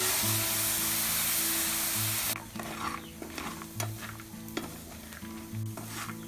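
Liquid poured onto peanuts roasting in a hot perforated metal pan sizzles loudly, then stops suddenly a little over two seconds in. After that, long chopsticks stir the peanuts, with light clicks and scrapes of nuts against the metal mesh.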